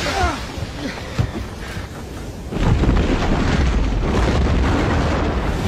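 Deep rumbling crash of a rock spire collapsing, a sound effect that comes in suddenly about two and a half seconds in and keeps rumbling; a sharp knock comes a little over a second in, before it.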